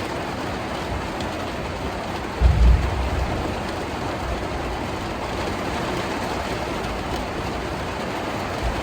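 Heavy rain pouring steadily onto the van's roof and body during a thunderstorm, heard from inside the van. A short low rumble of thunder comes about two and a half seconds in.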